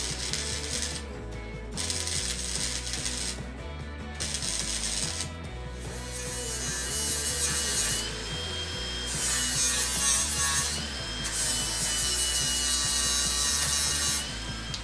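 Arc welding in short bursts, then an AEG angle grinder grinding the steel cowl panel of an old Ford Falcon ute, a steady high whine that breaks off briefly a couple of times.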